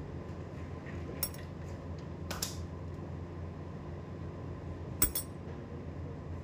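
Utensils clinking against dishes a few times: a light clink about a second in, a longer scraping clink a little later, and the loudest, a quick double clink about five seconds in. A steady low hum runs underneath.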